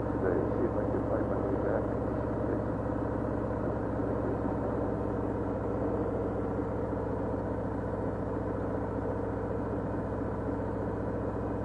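Cruiser motorcycle engine running steadily at low riding speed, a low, even engine note with fine regular firing pulses.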